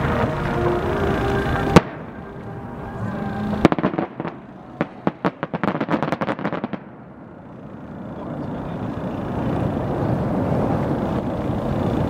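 Aerial fireworks: a single sharp bang, then a few seconds of rapid crackling as the bursts pop overhead. A steady background rumble builds back up afterwards.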